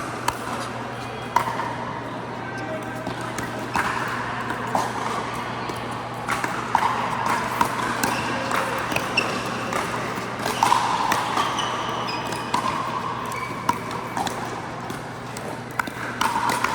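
Pickleball play on an indoor court: irregular sharp pops of paddles striking the plastic ball and the ball bouncing, with short high squeaks in between.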